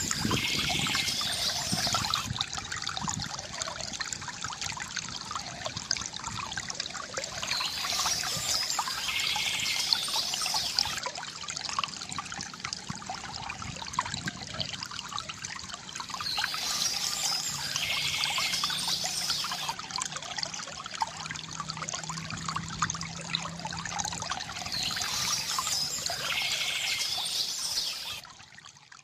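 River water gurgling and trickling steadily, with a songbird singing a short high phrase about every eight or nine seconds, four times in all. The sound dips away just before the end.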